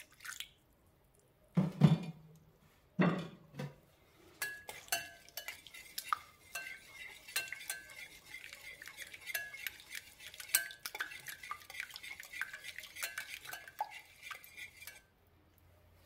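Wire whisk beating egg and milk in a glass bowl, its wires clinking rapidly against the glass for about ten seconds before stopping abruptly. Two dull thuds come before the whisking starts.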